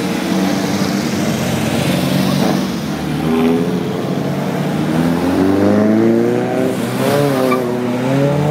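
Engines of historic racing cars running at low revs, with one engine revving up and down in the second half.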